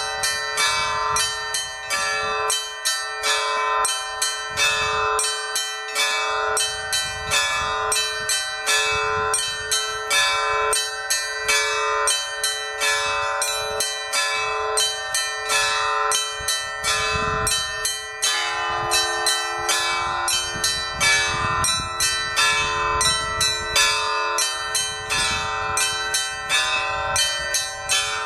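Orthodox church bells rung together in a rapid, continuous peal: small bells struck about three times a second over the ringing of larger bells. About 18 seconds in, a lower bell joins and keeps sounding under the rest.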